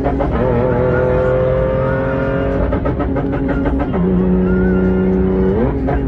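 Engine and road noise inside a moving car, with sustained tones held over it that step up and down in pitch every second or two.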